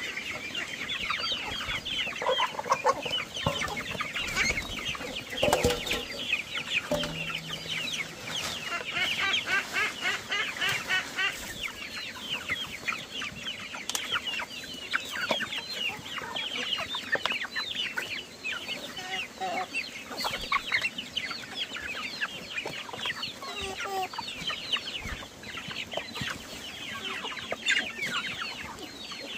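A flock of young chickens and ducklings peeping continuously, a dense chatter of many short, high, falling calls, with a few lower calls now and then as they crowd the feed basin.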